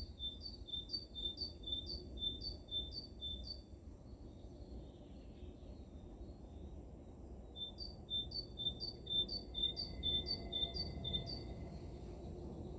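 A small songbird singing a quick run of repeated two-note phrases, about three a second, given twice with a pause of about four seconds between, over a low steady background rumble.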